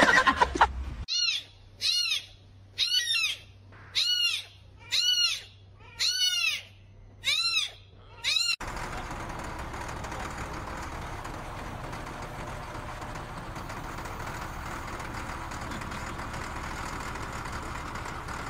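Seven high kitten meows, about one a second, each rising and then falling in pitch, over a low steady hum. About halfway through they stop abruptly and steady engine noise from a heavy machine's engine takes over.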